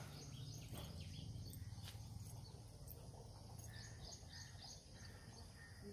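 Quiet outdoor ambience: a steady low rumble with faint bird chirps now and then.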